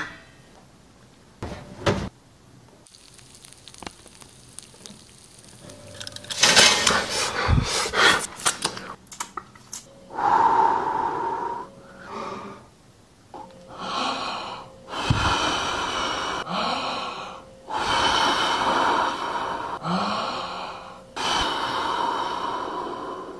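A string of breathy hisses and exhales made with the mouth, each one to two seconds long, with short gaps between them and a faint steady hum underneath. A clatter of small knocks comes a few seconds before them.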